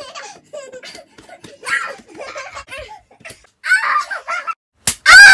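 Giggling and laughing voices during playful roughhousing, then a loud, high yell near the end.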